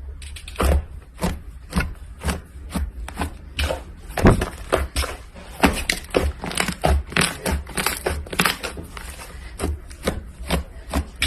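Slime being squished and pressed by hand, making a string of sharp, sticky clicks and pops about two or three times a second.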